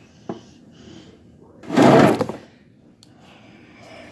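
A single short thump with a rattle about two seconds in, and a faint click near the start: hands handling plastic toy wrestling figures in a toy ring.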